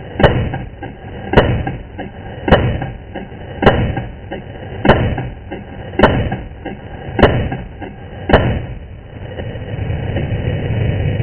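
AR-15 rifle firing eight single shots in steady slow fire, a little over a second apart. After the last shot a steady low rushing noise builds.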